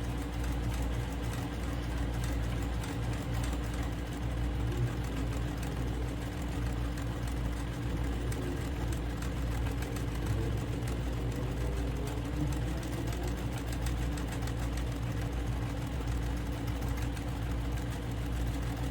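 Electric sewing machine running steadily, topstitching fabric with a continuous motor hum and needle chatter.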